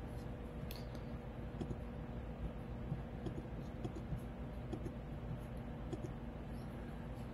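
A few soft computer mouse clicks over a low, steady electrical hum of room tone.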